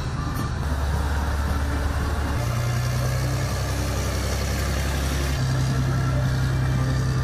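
Heavy diesel engine of a multi-axle missile launcher truck running steadily as the vehicle drives slowly past, a deep low drone that shifts in pitch a few times.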